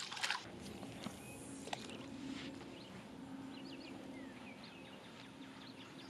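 A small splash as a released bluegill drops back into the pond, then faint bird chirps over a low steady hum.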